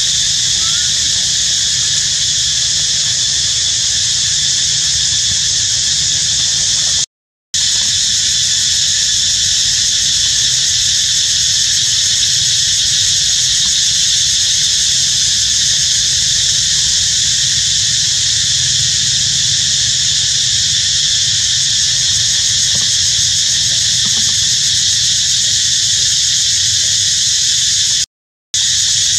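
Steady, loud, high-pitched insect drone with a low rumble beneath it, cut to silence twice for a moment: about seven seconds in and near the end.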